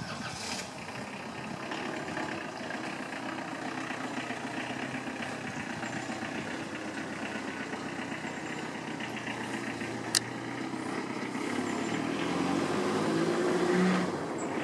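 Mazda 5 people carrier's engine idling steadily. Near the end it rises in pitch and loudness for a couple of seconds, and there is one sharp click about ten seconds in.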